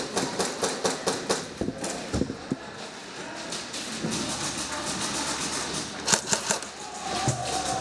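Airsoft guns firing: a string of sharp pops a few tenths of a second apart at first, then a quick burst of about four louder pops near six seconds in.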